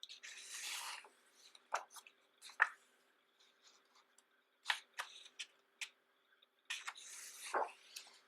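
Pages of a large, thick photobook being turned by hand: two papery sweeps, one at the start and one about seven seconds in, with light taps and rustles of paper between.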